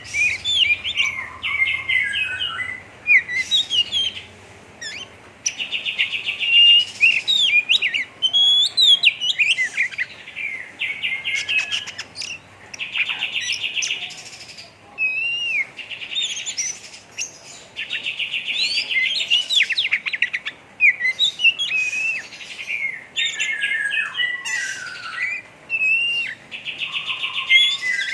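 Oriental magpie-robin (kacer) singing a harsh 'ngeriwik' song: rapid buzzy rattling trills alternating with short whistled notes and slurs, repeated with brief pauses.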